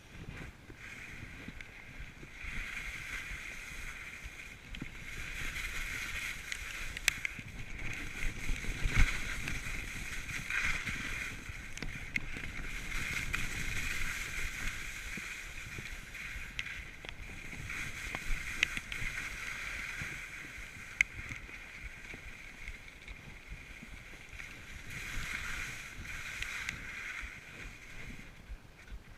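Skis scraping and carving over the snow of a steep piste, a hissing scrape that swells and fades every few seconds with each turn, with wind rumble on the microphone and a few sharp clicks.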